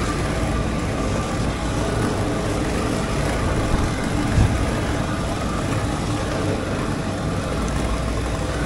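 Steady drone of the air blower that drives a ball-pit ball-shower machine, pulling plastic balls up its hose, with one short knock about four seconds in.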